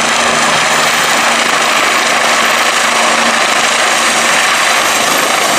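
Helicopter sound: a loud, steady engine-and-rotor whir that starts and cuts off abruptly.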